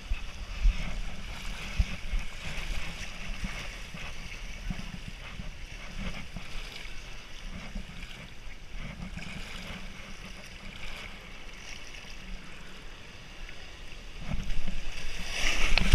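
Water rushing down an open water slide with the rider's body sliding through it, over a low rumble. The rushing grows louder over the last couple of seconds as the slide runs out toward the splash pool.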